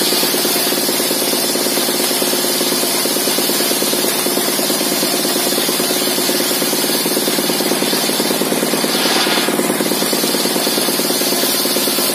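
Engine-driven sawmill circular saw with a modified ripping blade, splitting timber along the grain: a steady cutting hiss over the fast, even beat of the stationary engine that drives it. The high cutting sound breaks off briefly about nine seconds in, then resumes.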